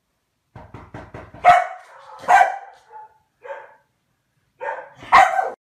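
A Komondor barking about five times at uneven intervals, just after a quick run of short ticks.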